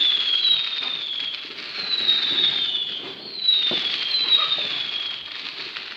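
Whistling 'screamer' fireworks: about five high whistles, one after another and overlapping, each sliding slightly down in pitch, over a crackling haze of distant fireworks.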